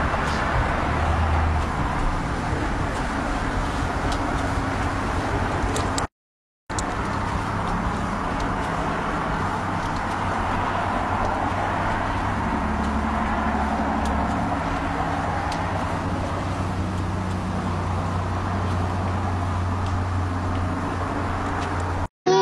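Steady outdoor background noise with a low hum, broken by a brief silence about six seconds in.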